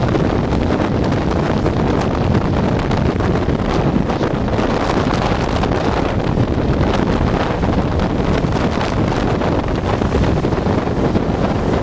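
Strong wind buffeting the microphone over the steady rush of storm surf breaking against a stone breakwater.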